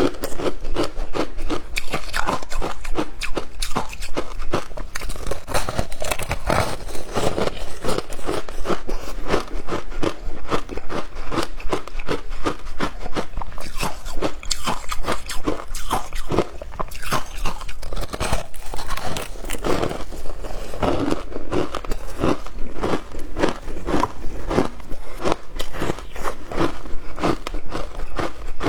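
A person biting into and chewing frozen passion fruit ice, a dense run of crunches several times a second.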